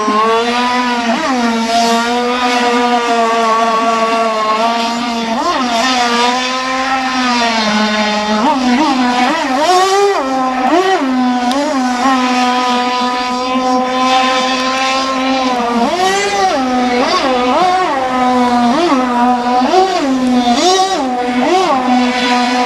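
Radio-controlled model racing boat's small engine running at high revs, held steady on the straights, its pitch dipping and climbing again many times as the throttle is eased and reopened through the turns.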